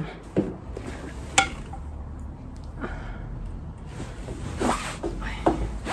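Handling and movement noise as a person walks out onto a balcony with the phone and sits down: rustling, a sharp click about a second and a half in, and a few softer knocks near the end, over a low rumble.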